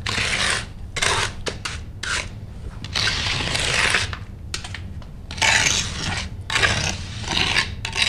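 Magnesium hand float scraping over fresh wet concrete in a series of irregular short and long strokes, about one a second, as the concrete patch around the pit is floated roughly level. A faint steady low hum lies underneath.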